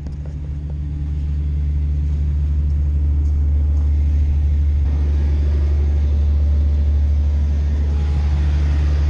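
A John Deere bulldozer's diesel engine running, a deep steady rumble that grows louder over the first two seconds and then holds.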